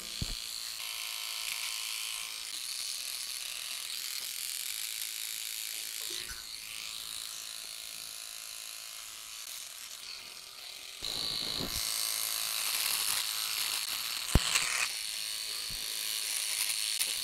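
Philips OneBlade QP1424 electric trimmer running, its blade buzzing steadily as it shaves stubble off the cheek and neck. It gets louder about two-thirds of the way through, with a single sharp click a little later.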